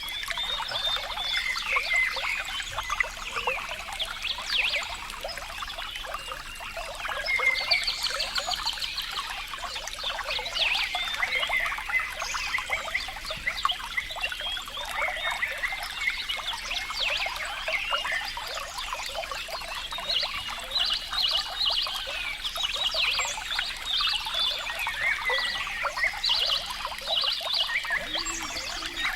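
Running water trickling and gurgling steadily, a dense patter of small bubbling notes.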